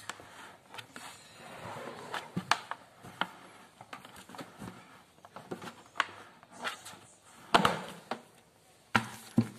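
Handling noise from a plastic paint bucket with a water-heater element fitted through its side: scattered taps, knocks and rubbing, with a louder thump about seven and a half seconds in and two more sharp knocks near the end.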